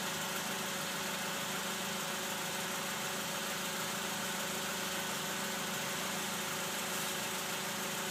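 2007 Honda Accord engine idling steadily with fresh oil, run so the new filter and drain plug can be checked for leaks.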